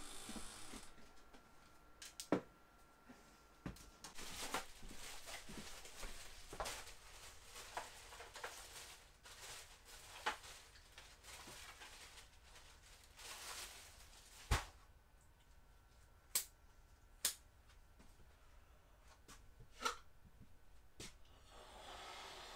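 Quiet household handling sounds in a small room: scattered light clicks and knocks, with some rustling. The sharpest knock comes about two-thirds of the way in, followed by a few lighter clicks.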